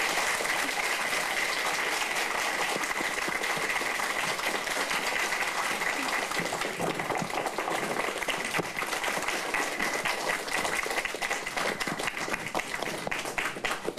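Audience applauding, a steady patter of many hands clapping that dies away near the end, with a faint steady high tone running underneath.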